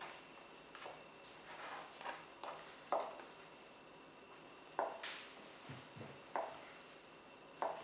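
Kitchen knife cutting through a block of Spam, with a few sharp, irregular knocks as the blade strikes the surface underneath.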